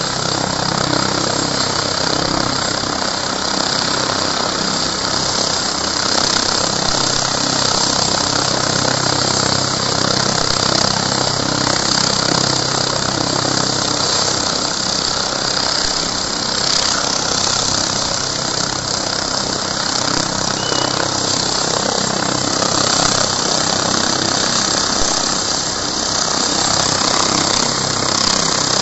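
A light twin-turbine helicopter with a fenestron tail rotor is running at idle on the pad: a steady turbine whine over the hum of the turning rotor. The low hum weakens a little about halfway through.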